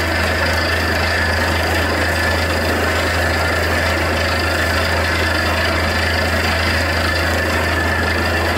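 Truck-mounted borewell drilling rig running at a loud, steady drone, with a constant low hum and a hiss of water and air spraying out of the borehole casing.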